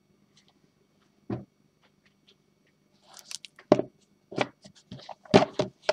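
Small cardboard card boxes being closed and handled: a soft knock about a second in, then scraping and several sharp knocks in the last few seconds.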